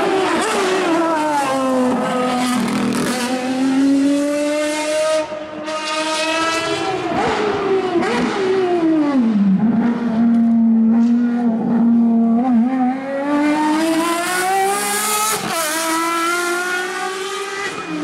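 Ferrari FXX Evoluzione's 6.3-litre V12 engine running hard on track, its pitch falling and rising several times as the car slows and accelerates. The pitch drops steeply about nine seconds in, holds a steady low note, then climbs again from about thirteen seconds.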